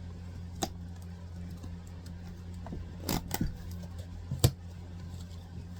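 Handling noise: a few short clicks and taps, a small cluster about three seconds in and the loudest about a second later, over a steady low hum.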